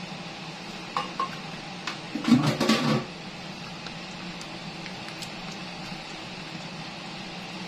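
A cooking utensil clinking twice against a pan, then about a second of clattering and scraping as it stirs a thick stew, over a steady low hum.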